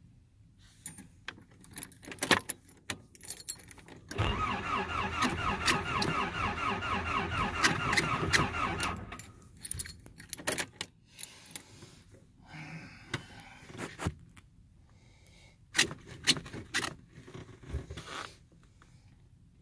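Keys jangle and click at the ignition, then the Nissan 720's starter cranks the engine in an even rhythm for about five seconds and stops without the engine catching: a failed cold start. More key rattling and clicks follow.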